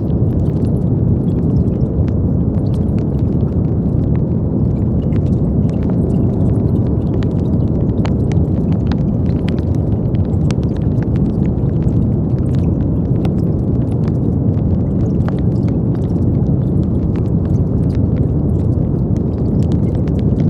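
Steady brown noise: a deep, even rush weighted toward the low end, unchanging throughout, with faint scattered ticks in the treble.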